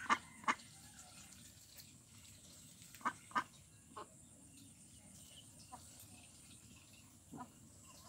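A flock of domestic ducks quacking in short, separate calls. A quick run of three comes near the start, two more about three seconds in, then a few scattered single quacks.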